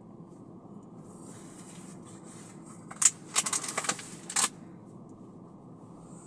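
Steady low road rumble of a car being driven, with a quick, irregular cluster of sharp clicks and clatters about three to four and a half seconds in.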